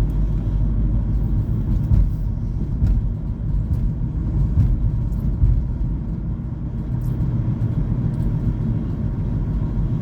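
A car driving, heard from inside the cabin: a steady low rumble of road and engine noise, with a few faint ticks.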